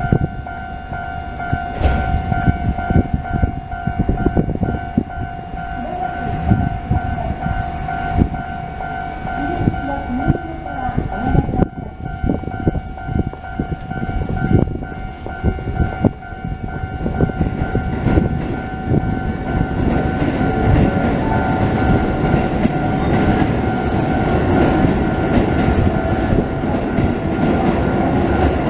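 Japanese level-crossing warning bell ringing in a steady repeating electronic pattern while a Keisei Kanamachi Line train runs through, its wheels knocking over the rail joints. The train noise swells and grows louder in the second half.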